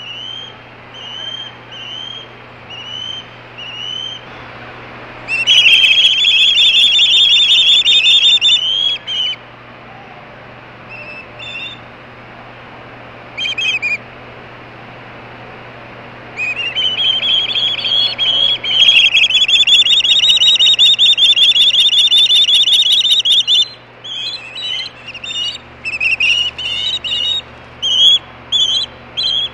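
Ospreys screaming on the nest: a run of short upslurred whistled calls, then two long stretches of loud, rapid screaming, with shorter calls between and after.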